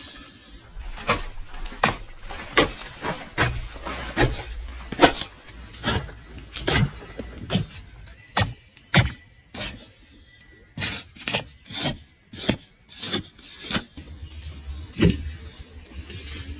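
Hand saw cutting through pallet wood: a series of rasping strokes, roughly one a second, with a short pause near the middle.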